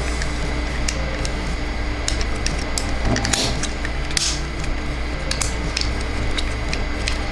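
Plastic toy parts clicking and snapping as a transforming toy is handled: scattered sharp clicks every second or so, over a steady low hum.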